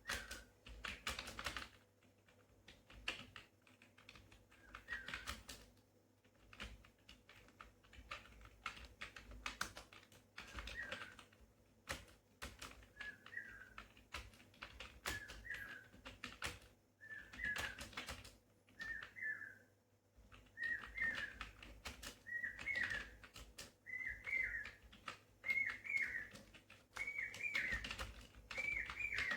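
Computer keyboard being typed on, keys clicking in quick irregular bursts. Behind it a bird repeats a short chirping call about once a second, growing louder toward the end.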